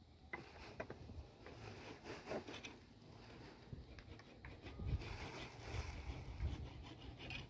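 Faint, scattered knocks and cracks of a small blade chopping a branch and of sticks being handled, over a low wind rumble on the microphone that swells about five seconds in.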